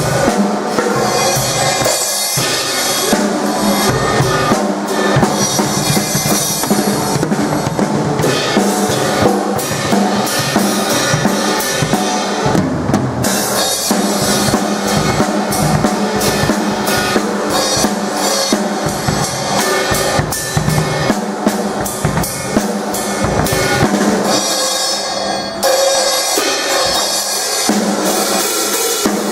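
Drum kit being played: a dense, continuous run of hits with no breaks.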